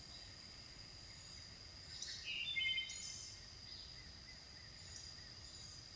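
Faint outdoor ambience: insects droning in one steady high tone, with a few short bird chirps about two seconds in.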